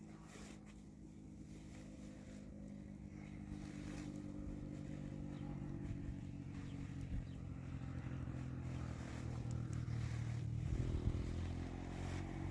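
A vehicle engine running steadily and growing louder as it comes nearer; its pitch shifts about eleven seconds in.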